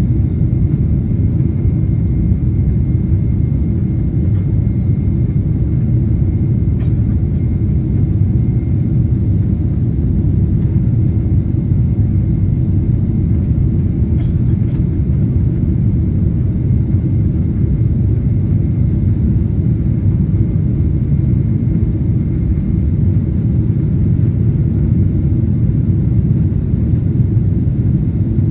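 Steady low rumble of a Boeing 777-200's engines and rushing air, heard inside the passenger cabin during the climb after takeoff.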